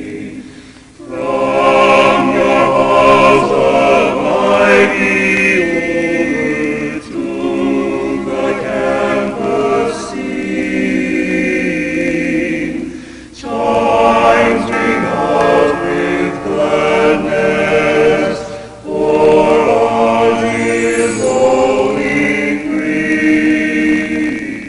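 A choir singing in long, held phrases, with brief pauses about 13 and 19 seconds in.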